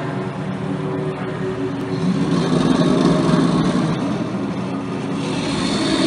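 Intonarumori noise machines droning: a steady rumbling, grinding hum with a few low tones that shift in pitch partway through.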